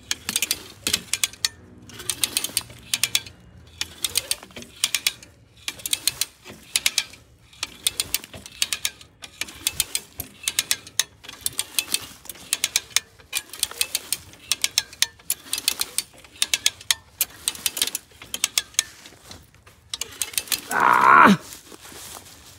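Hand-operated cable come-along winch being ratcheted: each stroke of the handle gives a cluster of sharp pawl clicks, about once a second, as the rope to the log is drawn tight. Near the end there is one loud tone that slides down steeply in pitch over about half a second.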